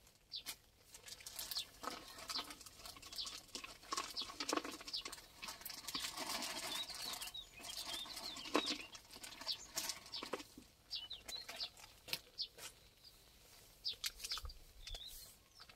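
Corn and hemp seed bait mix being handled, a dense, irregular patter of grains with scattered clicks, thickest about halfway through.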